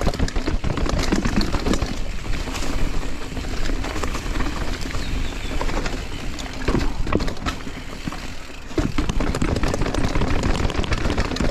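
Mountain bike running fast down a rough dirt and rock trail, with steady rushing noise and a constant clatter of knocks and rattles from the tyres and bike over the bumps.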